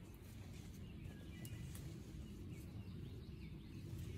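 Faint bird chirps, a few short calls scattered through, over a low steady rumble.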